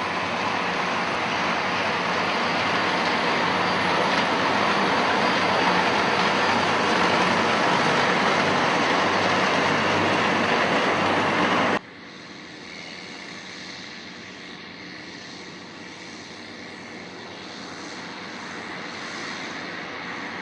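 Case IH tractor engine running steadily while working a Jamesway Ultra Trac tanker. About halfway through, the sound cuts off abruptly and gives way to a quieter, steady running sound.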